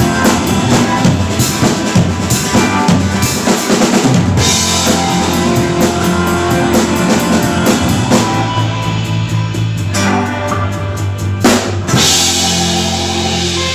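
Band music driven by a drum kit, with kick and snare strokes over sustained pitched instruments. Near the end comes a loud hit, then a held chord rings on.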